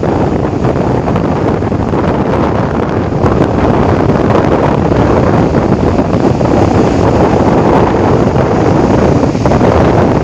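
Strong wind buffeting the microphone: a loud, steady noise with a heavy low rumble that rises and falls slightly.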